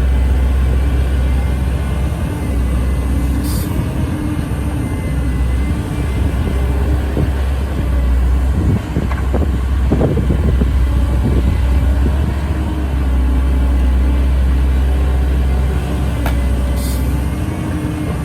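Heavy diesel engine running steadily under a deep drone, with a few knocks about halfway through and two short hisses.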